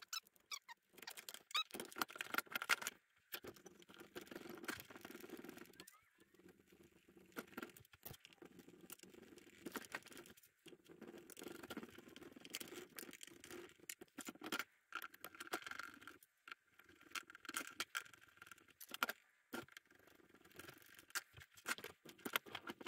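Faint, irregular clicks, taps and rustles of gloved hands fitting plastic covers and working a screwdriver on a chainsaw being reassembled.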